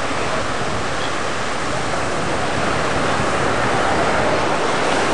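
Ocean surf washing onto a sandy beach: a steady rushing that swells slightly in the second half.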